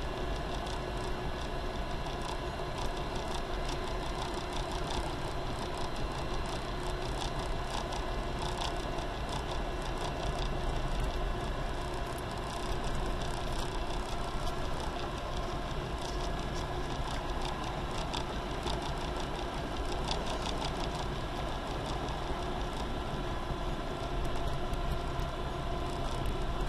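Diamond HK36 Super Dimona motor glider's piston engine and propeller running steadily, heard inside the cockpit, with a faint irregular crackle over the drone.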